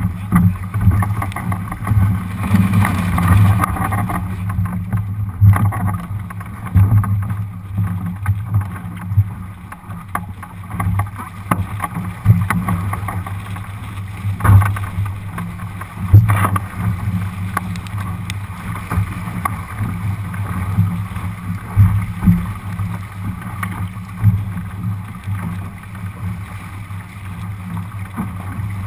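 Wind buffeting the microphone and water rushing and splashing against the hull of a Lightning sailboat sailing upwind through chop, with a steady low rumble and irregular sharp thumps, the loudest around the middle.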